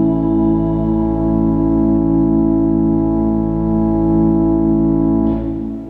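Church organ holding a final sustained chord over a deep bass note, released about five seconds in, the sound dying away in the church's reverberation.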